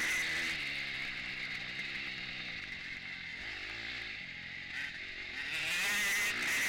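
KTM 250 four-stroke single-cylinder motocross engine running under throttle. It backs off about a second in, runs lower through a corner, then opens up and revs hard again near the end.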